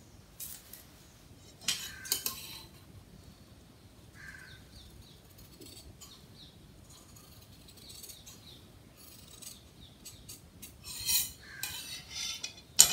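Large tailor's scissors cutting through red blouse fabric: crisp snips in short runs, clustered near the start and again toward the end, with the cloth rustling as it is handled between cuts.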